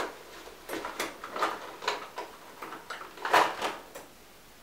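Makeup cases and brushes being handled: a run of light clicks and clatters, the loudest cluster a little over three seconds in.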